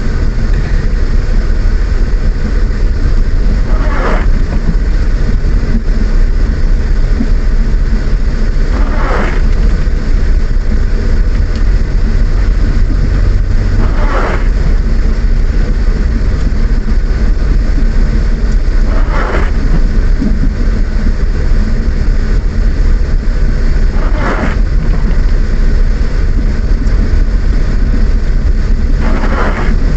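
Car driving in the rain, heard from inside: a steady low rumble of engine and tyres, with a short swish about every five seconds from the windscreen wipers on their intermittent setting.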